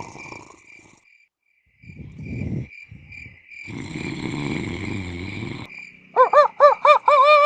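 Crickets chirping steadily under two loud snores, a short one then a longer one. About six seconds in a rooster crows: several short rising-and-falling notes, then one long held note.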